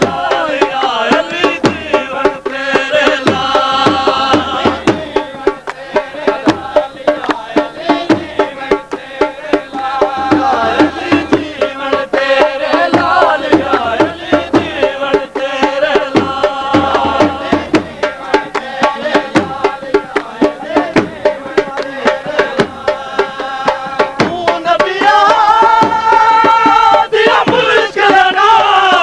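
A dhol drum is beaten in a fast, steady rhythm while a group of men sing a devotional qasida together. Near the end the voices hold long notes.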